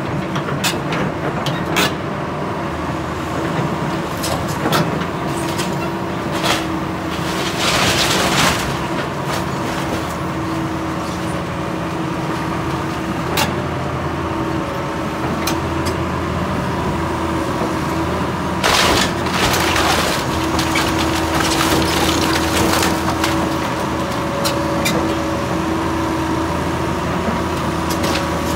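Tracked excavator's diesel engine running steadily while its bucket tears into a wooden roof frame, with repeated cracks, splintering and crashes of breaking lumber and debris; the biggest crashes come about eight seconds in and again around nineteen to twenty-three seconds in.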